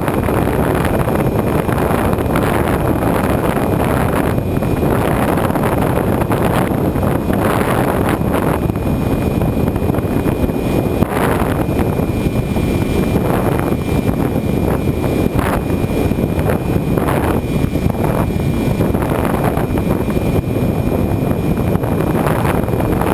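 Wind rushing over the onboard camera of a Bixler electric RC plane in flight: a loud, steady rush with brief gusty surges every second or two, and a faint steady high whine beneath it.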